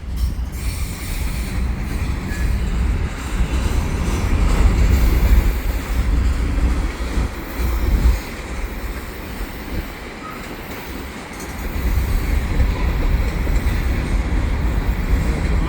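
Freight train hopper cars rolling past, a steady heavy rumble of steel wheels on rail that eases briefly about two-thirds of the way through.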